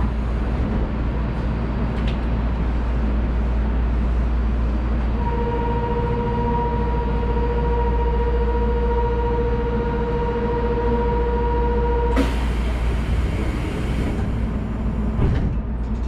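Chiba Urban Monorail 1000 Series suspended monorail car standing at a platform with a steady low hum. A steady buzzer tone sounds for about seven seconds from about five seconds in. As it cuts off, a rush of hiss rises briefly.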